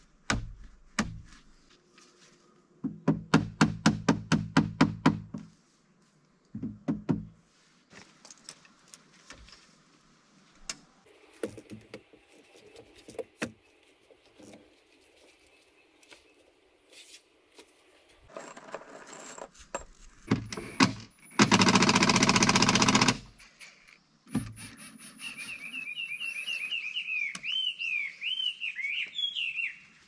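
Deck-building work: a run of rapid knocks a few seconds in, scattered clicks and taps, then a cordless impact driver running for about a second and a half roughly three-quarters of the way through. A bird calls over and over near the end.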